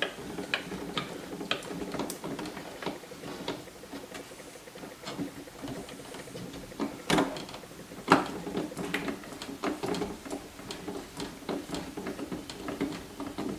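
Small clicks, scrapes and taps of hands working a screwdriver and handling wires and the plastic housing of a range hood controller, with two louder knocks about seven and eight seconds in.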